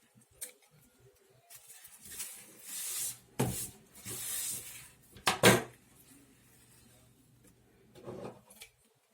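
Handling noise from woven palm pieces: two spells of rustling, with sharp knocks about a third and halfway through, the second the loudest, and a softer knock near the end.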